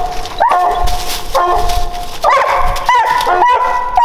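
Coonhounds baying at the foot of a tree: long drawn-out bawls, then shorter calls coming quicker and overlapping near the end. This is the tree bark that signals a raccoon treed.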